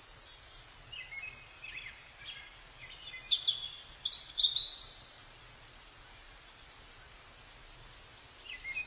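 Songbirds chirping in quick bursts of short, high calls and trills, the loudest about three to five seconds in and another near the end, over a faint steady rush of falling water.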